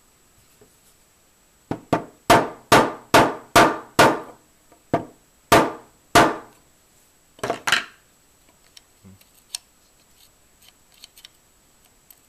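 Hammer tapping a part into an AR-15 lower receiver: about a dozen sharp taps, six in a steady run about two a second, then a few spaced single taps and a quick double, then a few faint ticks.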